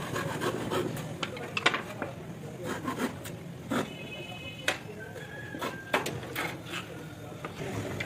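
Handsaw cutting across a thin wooden slat held on a log block, in short, uneven rasping strokes with a few sharp clicks.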